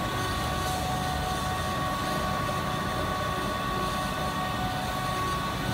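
Industrial machinery running: a steady low hum with a constant high-pitched whine on top and no distinct knocks.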